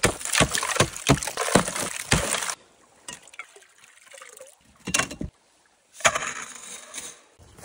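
Small axe chopping a hole in ice: a quick run of about seven sharp blows with crunching ice for the first two and a half seconds. Then water sloshes and splashes as a cooking pot is dipped through the hole and filled.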